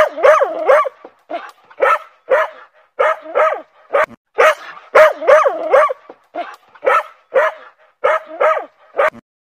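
Dog barking in quick, high-pitched yips, about two a second and some in pairs, stopping abruptly near the end.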